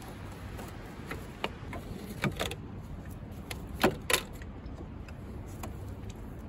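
Plastic clicks and knocks as a Nissan Micra K11's coolant expansion tank is worked loose and lifted out of the engine bay. A few light clacks come about two seconds in, and a louder pair of knocks about four seconds in, over a low steady hum.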